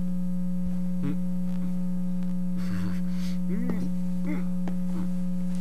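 Steady electrical mains hum on the VHS tape transfer, with faint background music beneath it.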